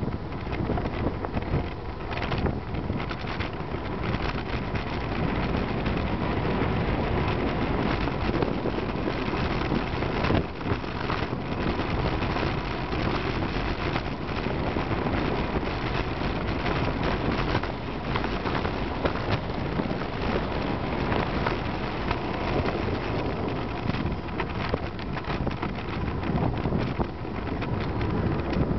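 Steady rush of wind on the microphone of a moving road bike, mixed with the noise of car traffic going by.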